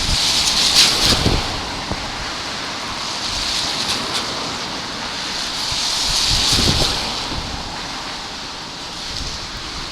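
Gusty wind on the microphone: a steady hiss that swells twice, with low buffeting thumps at each gust.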